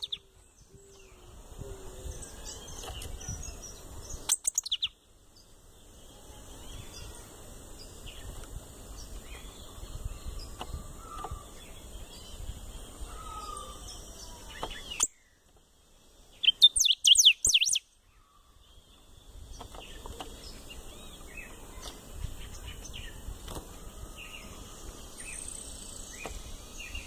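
A caged golden-billed saltator (picahueso) singing: two short, loud phrases of rapid high notes, one about four seconds in and another about sixteen seconds in. Fainter chirps of other birds come in between.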